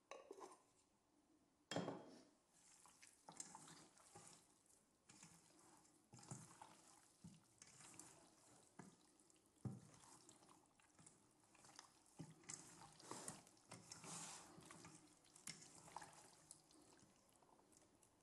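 Hands mixing raw chicken pieces with spices in a stainless steel bowl: faint, irregular wet squelches and slaps of the meat, with a sharper knock about two seconds in.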